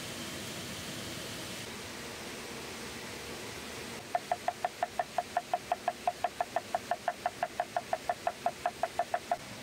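Cleaver chopping fresh greens on a thick wooden log-slice board: a quick, even run of knocks, about five or six a second, that starts about four seconds in and stops just before the end. A steady hiss of background noise lies under it.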